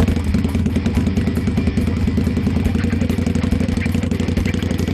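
Harley-Davidson V-twin motorcycle engine running as the bike rides off, its exhaust pulsing in quick, even beats.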